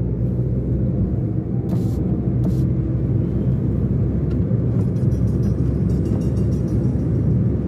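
Steady low rumble of a car on the move, engine and tyre noise together.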